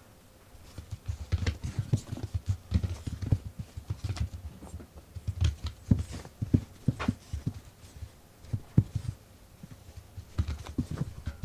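Irregular light taps and soft thumps, several a second, with a brief lull and one sharper knock about two-thirds of the way through, then a final flurry of taps.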